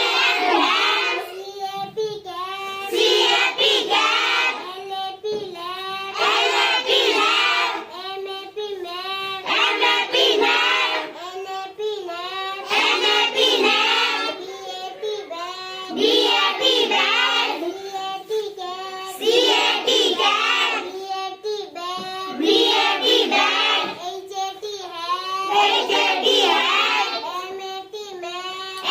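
Children chanting simple English words aloud in a sing-song rhythm, phrase after phrase about every three seconds, as a reading drill of short-a vowel words.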